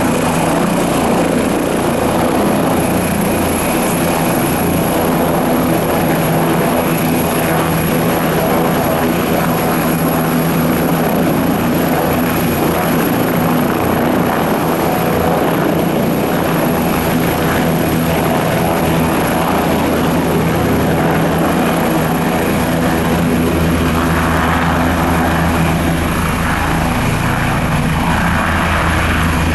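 Leonardo AW169 twin-engine helicopter running with its rotors turning: a steady high turbine whine over the rotor's beat. A rush of noise swells about 24 seconds in.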